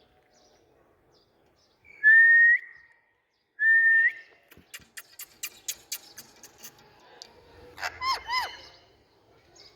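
Indian ringneck parrot whistling two loud held notes, each turning up at the end, then making a quick run of about eight sharp clicks, about four a second, and three short arched chirps near the end.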